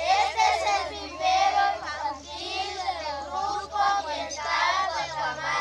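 A group of children singing together in unison, in continuous phrases with brief pauses between lines.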